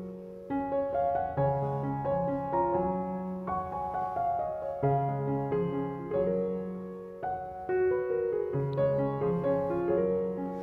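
Background piano music: a melody of struck notes over lower held notes.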